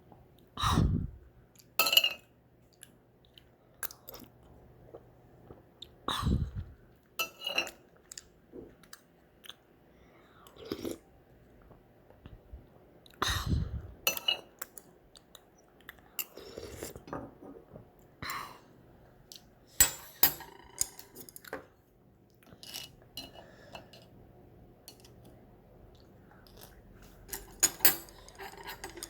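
Close-up eating sounds: chewing ramen, with a few louder mouth noises and scattered short clicks and clinks of utensils against the bowl.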